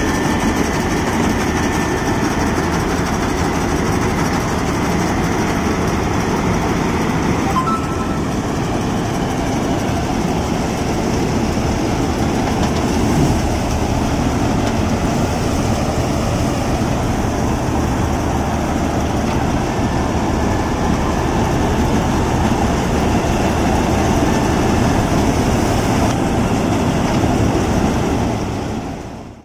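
Combine harvester running steadily with its engine and threshing machinery at work while it cuts rice in a wet paddy field; the noise fades out near the end.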